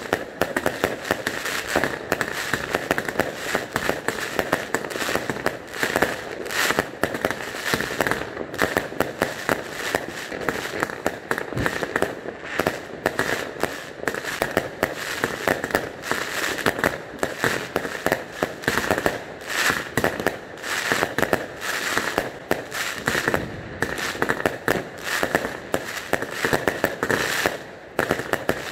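New Year fireworks going off in a dense, continuous barrage of rapid overlapping bangs, with no let-up.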